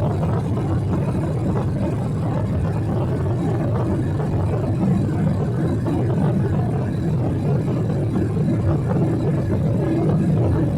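Steady low drone inside the passenger cabin of a Boeing 777-300: engine and air noise with a faint steady hum running through it.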